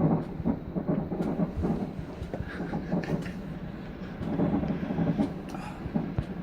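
Fireworks going off at a distance: scattered sharp bangs and pops over a low, rolling rumble.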